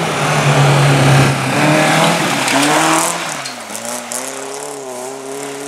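Rally car engine revving hard, its note stepping up and down as it accelerates and the driver shifts or lifts; the pitch dips about three and a half seconds in, then climbs again.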